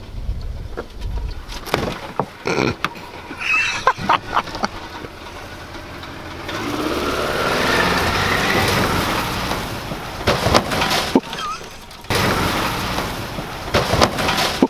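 Car engine revving hard as the sedan slides across a grassy slope, with sharp knocks and crunches as it runs into a pile of cut logs near the end.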